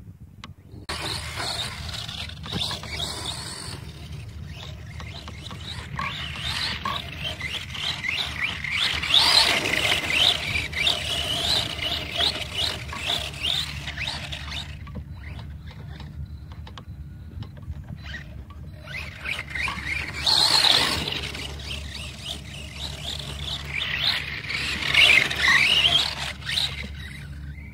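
Brushless electric motor of a DHK Crosse RC truck whining in bursts, its pitch rising and falling with the throttle, over the scrabble of tyres digging into loose dirt and gravel.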